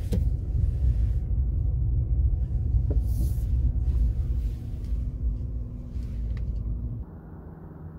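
Low, steady rumble of a car driving, heard from inside the cabin. It drops to a quieter hum about seven seconds in.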